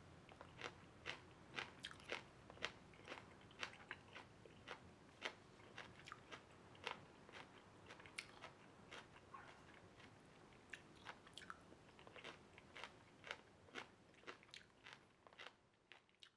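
Someone chewing crisp stir-fried water spinach (morning glory) stems: a run of short, sharp, quiet crunches at irregular spacing, about one or two a second.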